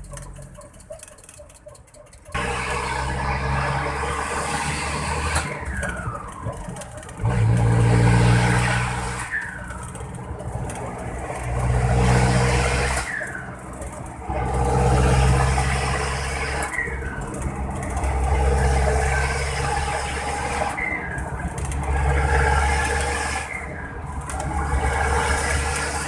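Vehicle engine running and being revved repeatedly, the rumble swelling and easing every three to four seconds. A falling whistle sounds between the revs.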